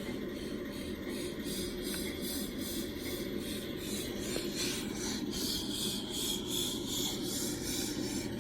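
42-inch Hampton Bay Landmark ceiling fan running on medium speed: a steady motor buzz with a rhythmic rubbing swish about three times a second, growing a little louder after the middle.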